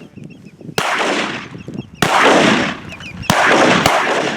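Three shotgun shots about a second and a quarter apart, each a sharp crack followed by a long echoing decay.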